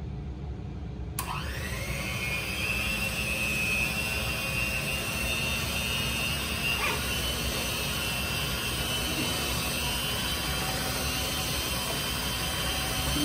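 Cuisinart electric hand mixer running with its beaters in a glass bowl of cake batter. Its motor whine rises about a second in, then holds steady at a high pitch. It is mixing wet cupcake batter.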